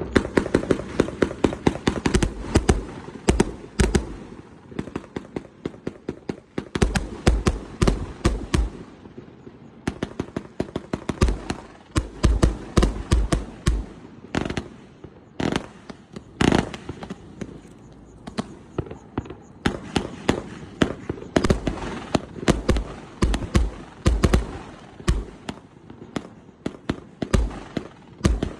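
A 168-shot, 1.2-inch fireworks cake firing, its shots going off as sharp bangs in quick volleys with a few short pauses between them.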